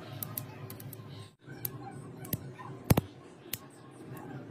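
Homemade carbon-rod spot welder crackling and snapping as its electrodes spark against steel razor blades, in a string of sharp clicks with the loudest near three seconds in, over a steady low electrical hum.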